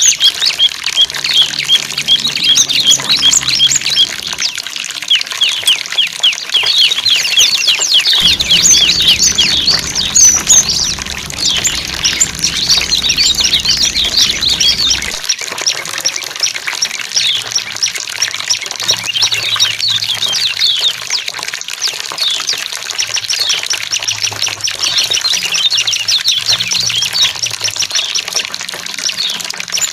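Several small songbirds chirping and twittering in fast, high, overlapping trills over the steady sound of running water.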